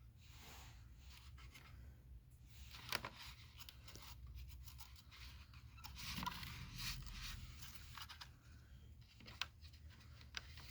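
Faint clicks and scrapes of hands handling and prying at the plastic housing of a Shark Navigator DLX upright vacuum, checking whether a guard comes off; the vacuum is not running. A sharp click comes about three seconds in and a scraping rustle around six to seven seconds.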